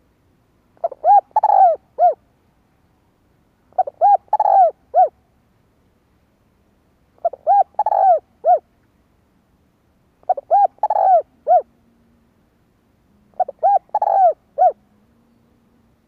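Spotted dove cooing, a caged decoy bird calling to draw in wild doves. It gives five phrases about three seconds apart, each a few short coos around a longer middle coo.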